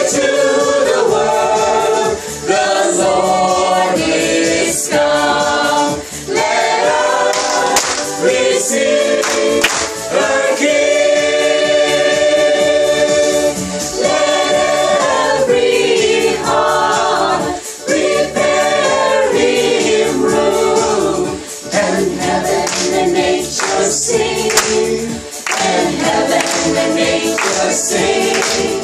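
Gospel-style choral music: a choir singing in full harmony with a steady beat.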